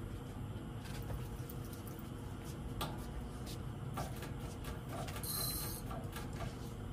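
Fishing reel being cranked against a hooked fish, giving irregular clicks and ticks, with a brief high hiss about five seconds in.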